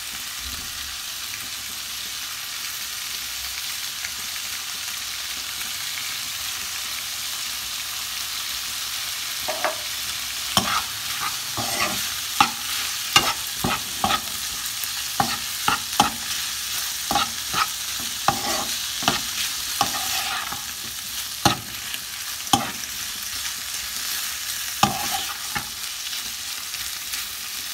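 Diced chicken frying in a non-stick pan with a steady sizzling hiss. From about ten seconds in, a metal spoon stirs the chicken, scraping and clinking against the pan many times.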